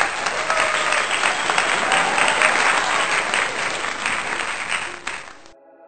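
A crowd applauding, a dense clatter of many hands clapping, which cuts off sharply about five and a half seconds in. Quiet, sustained music then starts in its place.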